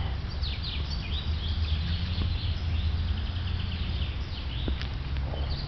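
Small birds chirping, with quick high notes that sweep downward, some in rapid runs, over a steady low rumble.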